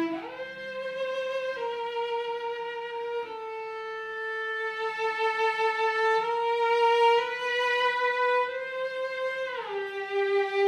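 Solo cello playing a slow melody high in its range, long bowed notes with vibrato. It slides up into the first note, steps slowly down and back up, then drops lower near the end.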